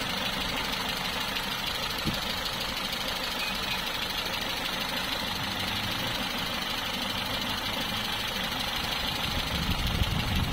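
Peugeot 206 petrol engine idling steadily with the bonnet open, heard close over the engine cover; it is a freshly fitted replacement engine.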